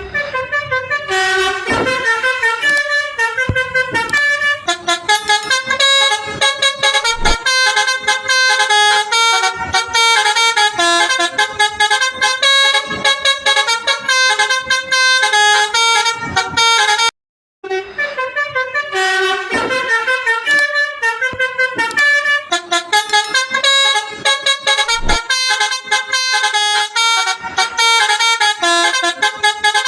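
Telolet multi-tone bus horn playing a fast melody of rapidly changing horn notes. It breaks off briefly about 17 seconds in, then the tune starts over.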